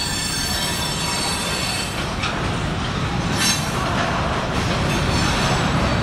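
Long Union Pacific freight train rolling through track switches: steel wheels squealing with high thin tones that fade after about two seconds, over a steady rumble. A couple of sharp clanks about two and three and a half seconds in, and the rumble grows a little louder toward the end.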